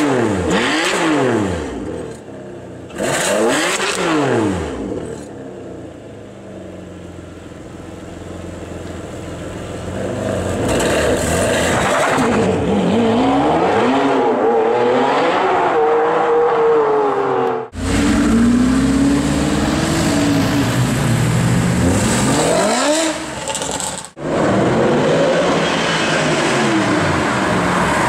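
Supercar engines revving and accelerating in a run of short clips, the engine note rising and falling with each rev. The sound cuts abruptly to a different car twice, about two-thirds of the way through and again near the end.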